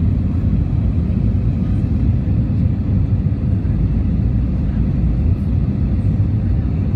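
Steady low rumble inside the cabin of an Airbus A321-200 on descent, a window seat just behind the wing: the IAE V2500 turbofan engines and airflow over the fuselage, even in level throughout.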